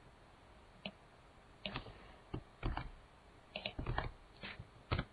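Computer keyboard being typed on: irregular single keystrokes and short runs of keys, about eight in all, over a faint steady background.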